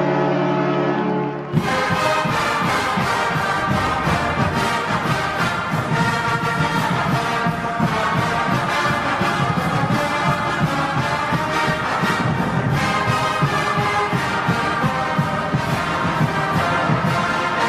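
Notre Dame hockey goal horn holding one steady chord that cuts off about a second and a half in. Loud brass band music with a strong beat takes over as the goal song.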